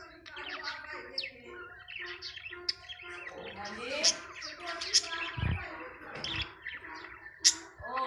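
A flock of budgerigars chattering: a continuous warble of chirps, clicks and sharp high tweets. Two dull low thumps come a little past the middle.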